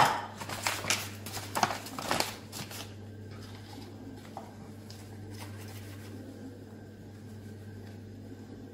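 A sharp knock as an enamel mug is set down on the kitchen worktop, then a paper flour bag rustling and crinkling for a couple of seconds, with faint rustles after as flour is poured from it into the mug. A low steady hum lies underneath.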